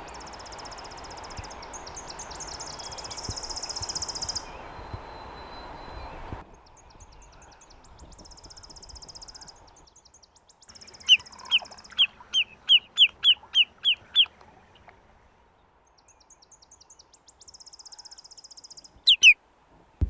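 Tennessee warbler singing: repeated high, rapid trilled phrases over a steady background hiss. Later a bird gives a run of about nine loud, evenly spaced short whistled notes.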